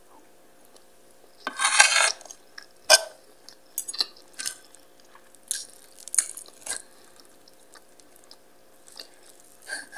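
Close-up eating sounds: a metal spoon and fork clinking and scraping on a plate, in a series of separate clicks, with chewing. A louder, longer burst comes about two seconds in and a sharp clink about a second later.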